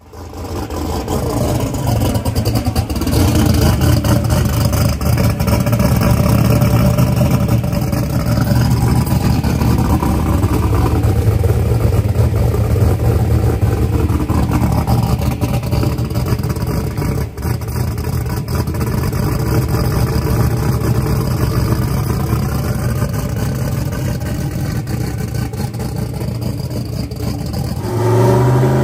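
A Fox-body Ford Mustang drag-radial race car's engine idling loudly with a steady low pulsing rumble. Near the end the revs climb.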